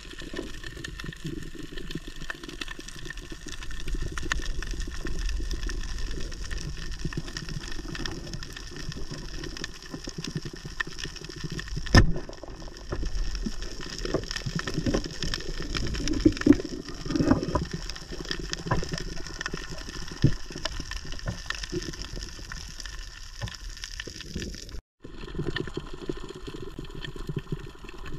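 Underwater sound over a coral reef heard through a camera in its housing: a steady crackle of fine clicks over a low, muffled rumble. A single sharp click stands out about twelve seconds in, and the sound cuts out for a moment near the end.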